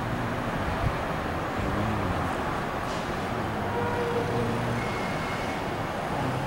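Steady city traffic noise: car engines running on the streets below, an even wash of sound with a low engine hum.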